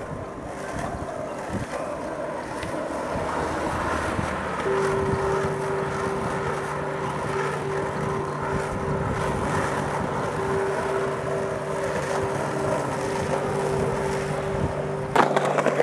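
Skateboard wheels rolling on asphalt with wind on the microphone: a steady rough noise that grows louder over the first few seconds. A steady hum of two held tones joins about five seconds in, and a few sharp knocks come near the end.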